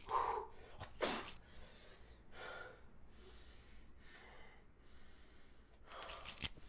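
A man breathing hard and gasping: a short vocal gasp at the start, a sharp breath about a second in, then fainter breaths every second or so.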